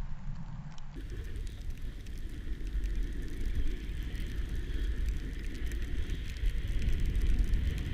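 Wind buffeting a moving action camera's microphone as it skis down a groomed run, a steady low rumble with the hiss of skis sliding over packed snow. It gets a little louder near the end.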